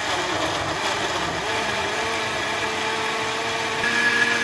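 Compact countertop blender running steadily, its motor humming as the blades grind green grapes and kale into juice.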